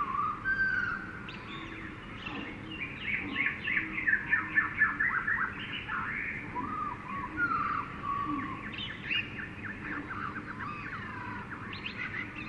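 Several birds calling and singing at once, with a loud run of quick repeated downward-sweeping notes about two to five seconds in, over a steady low hiss of jungle ambience.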